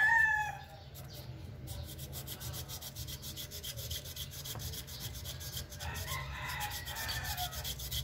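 Folded sandpaper rubbed back and forth between the switch contact points of an electric kettle, a quick, even rasping of short strokes. The sandpaper is smoothing contacts blackened by overheating, whose loose contact left the kettle without power. A rooster's crow fades out at the very start.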